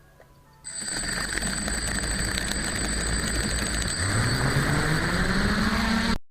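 DJI F450 quadcopter's stock brushless motors and ESCs starting abruptly, with a high steady electronic whine over the running noise, then spooling up, the motor pitch rising steadily as the throttle comes up for takeoff. The sound cuts out suddenly at the very end.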